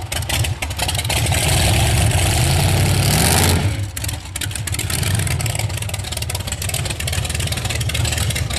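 Supercharged big-block Chevy V8 of a 1933 Plymouth hot rod coupe running as the car is driven slowly. The engine builds and rises in pitch for a couple of seconds, drops back sharply about three and a half seconds in, then runs on steadily at low revs.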